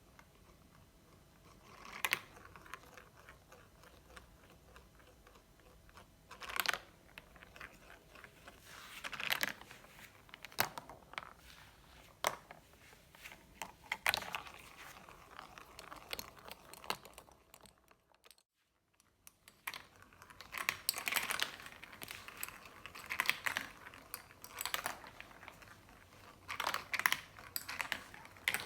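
Marbles rolling and clattering down a marble run, making irregular clicks and short rattling runs. There is a brief break of silence about two-thirds of the way through.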